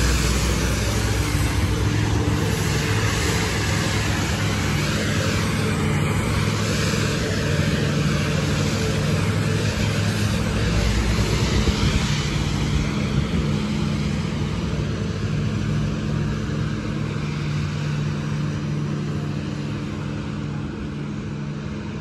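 A street sweeper truck running its engine and sweeping gear, a steady drone under a broad hiss, fading gradually over the last several seconds as it moves away.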